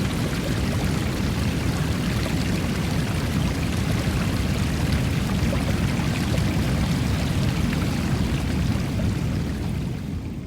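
Steady rush of water, fading out near the end.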